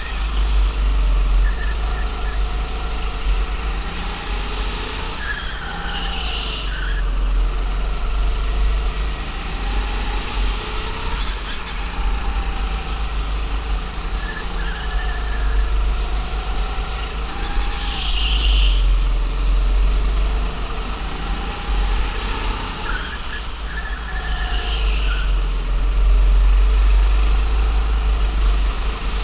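Go-kart engine heard on board, its pitch rising and falling as the kart speeds up and slows through the corners, over a heavy low rumble. Short high tyre squeals come in the corners, about six, eighteen and twenty-four seconds in.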